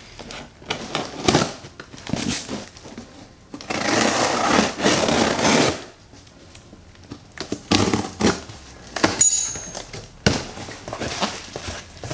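Packing tape being ripped off a long cardboard shipping box and the cardboard flaps torn open, in a series of rasping, tearing bursts. One long rip comes about four seconds in and lasts about two seconds.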